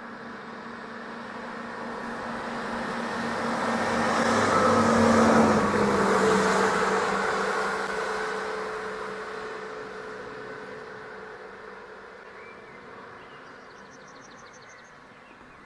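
Stadler Regio-Shuttle RS1 diesel railcar passing by: its engine note and the rumble of wheels on rail build to a peak about five seconds in. The engine tone drops in pitch as it goes past, then fades slowly as the railcar draws away.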